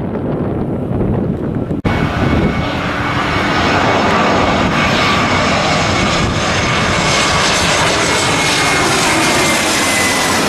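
Jet engines of a Jetstar Airbus A320-family airliner on approach with its landing gear down, passing close: a loud, steady rush with a faint high whine that slowly falls in pitch. The opening two seconds hold a lower, distant rumble, which cuts off abruptly before the rush begins.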